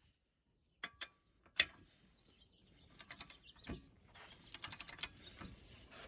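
Metal hand tools being handled, with a few sharp clicks and knocks and then two quick runs of ratchet-like clicking.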